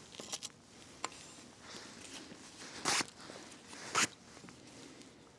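Short rustles and clicks of an angler handling his pole rig and tackle, the two loudest about three and four seconds in.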